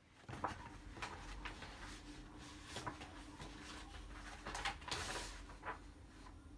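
Packaging being handled and opened: irregular rustling, crinkling and small knocks, with a louder stretch of crinkling about five seconds in, over a faint steady hum.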